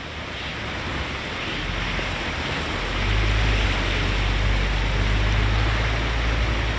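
Four-wheel-drive vehicle moving slowly along the wadi track: a low engine rumble comes in about one and a half seconds in and grows stronger about three seconds in, over a steady rushing noise.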